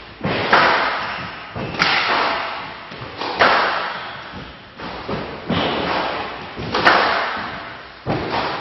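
Squash rally: a squash ball struck by rackets and hitting the court walls. Each sharp bang comes about every second and a half and echoes as it fades.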